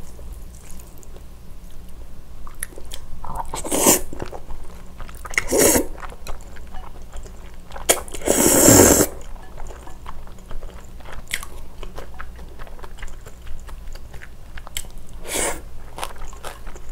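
A person chewing spicy cold noodles (yeolmu bibim-guksu made with medium-thick wheat noodles) close to the microphone, with small wet chewing clicks throughout. About eight seconds in comes one long, loud slurp of noodles, the loudest sound, with a few shorter mouth noises before and after it.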